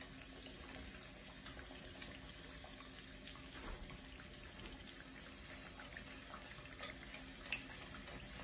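Folded dough squares frying in shallow hot oil in a pan: a faint, steady sizzle with scattered small crackles.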